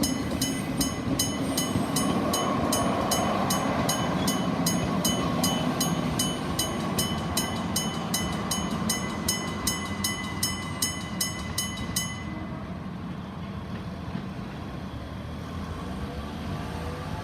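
Electric bell of a railway level crossing striking about twice a second while a train runs through the crossing with a steady rumble. The bell stops about 12 seconds in, and the train's rumble carries on more quietly.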